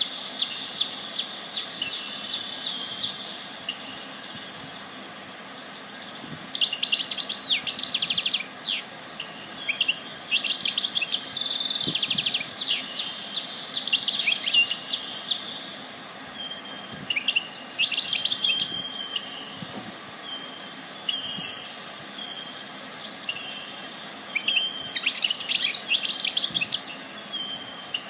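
Songbirds singing in bursts of quick chirps and trills every few seconds, with a few short whistled notes between phrases. Under them runs a steady high-pitched insect drone.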